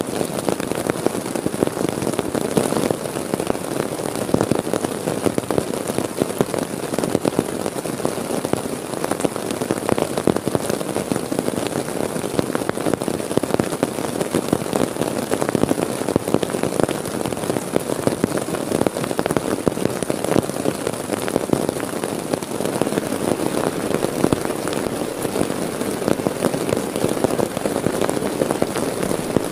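Heavy rain falling steadily, drumming on the tarp and tent fabric overhead as a dense patter of drops with no letting up.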